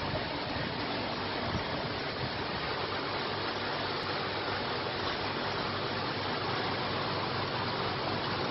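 Steady, even rushing noise with no distinct events in it.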